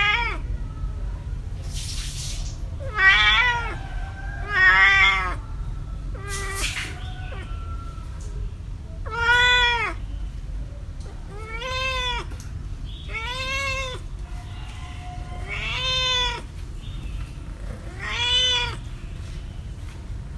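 Domestic cat meowing, about eight drawn-out, arching meows a second or two apart, over a steady low rumble. Two short hissing bursts come between the first few meows.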